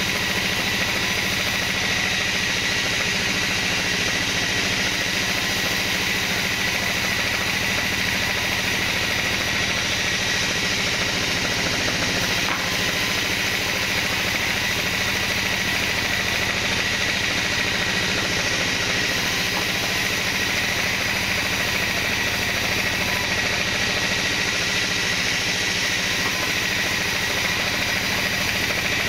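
Band saw running steadily while its blade rips a long kenanga wood board lengthwise: a constant machine drone with a steady high cutting whine, unchanging throughout.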